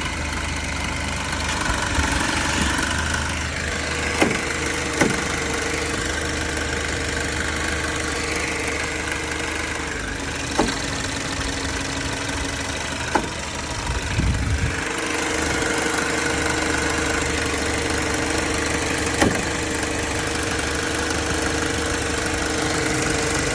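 Captiva SUV engine idling with a steady hum, broken every few seconds by a sharp knock at irregular intervals, about six in all. This is the abnormal noise the owner is showing.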